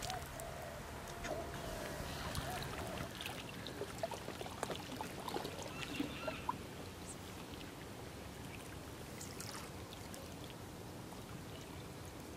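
Small waves lapping and trickling at the water's edge, with scattered light splashes and clicks over roughly the first six seconds, then a fainter steady wash.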